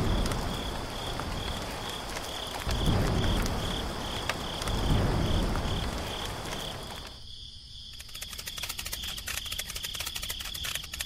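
Rain with three low thunder rumbles and crickets chirping about twice a second. The rain and thunder stop suddenly about seven seconds in, leaving the crickets and a fast faint ticking.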